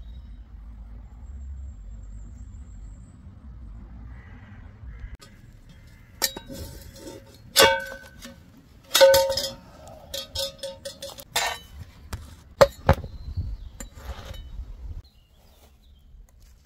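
Cookware and utensils clinking: a series of sharp knocks that each ring briefly, clustered from about six to fifteen seconds in.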